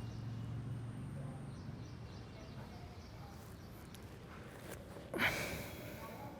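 A person's forceful breath out, a single sudden rush of air about five seconds in that fades over about a second.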